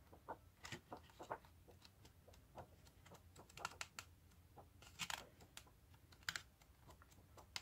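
Faint, scattered light clicks and rustles of a paper pad being handled, its sheets turned over.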